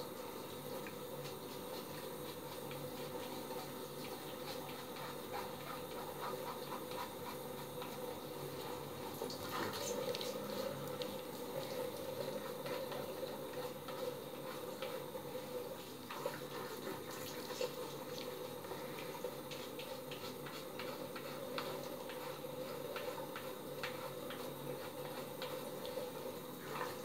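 Three-bladed razor scraping through a month's growth of hair on a gel-lathered scalp, in many short rasping strokes, over a steady low hum.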